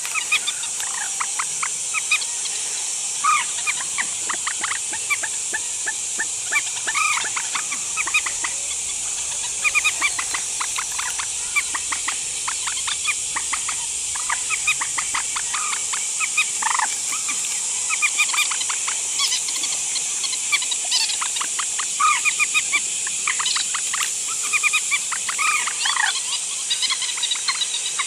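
Trích ré waterbirds calling: runs of quick, repeated clucking notes, coming in bursts, over a steady high hiss of insects.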